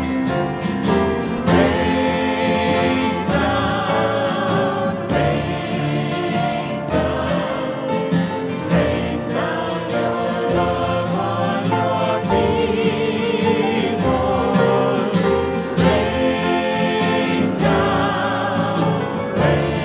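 Choir singing a hymn with guitar accompaniment.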